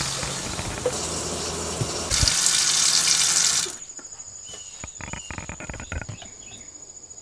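Water running from a faucet into a sink. The flow gets louder about two seconds in, then the tap is shut off at about three and a half seconds, leaving a few faint clicks.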